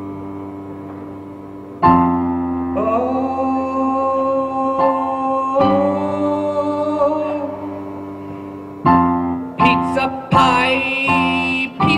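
Digital piano playing long held chords, with a man singing long wavering notes over it from about three seconds in. Near the end the chords turn short and repeated, with the singing going higher.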